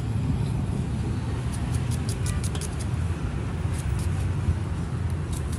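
Steady low rumble of road traffic, with a few faint crisp clicks of a knife slicing through a hand-held onion.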